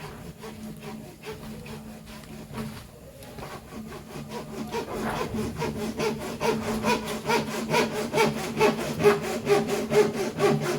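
Electrical wire insulation being scraped off by hand with a blade: quick, even, repeated scraping strokes that grow louder about halfway through.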